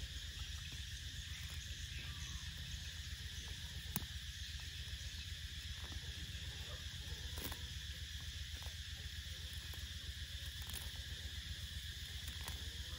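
Steady outdoor chorus of insects, a constant high buzzing hum, over a low rumble, with a couple of faint clicks.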